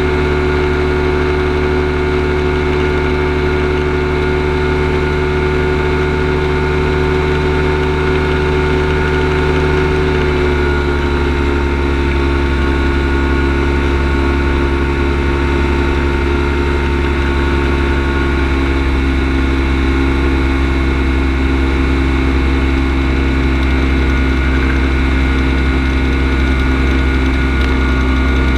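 Kolb Firestar II ultralight's two-stroke engine running steadily in flight. Its pitch drops slightly about ten seconds in and holds lower after that.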